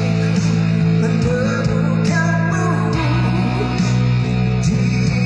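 A man singing through a microphone over amplified backing music with guitar and sustained low chords. The chord changes about three seconds in.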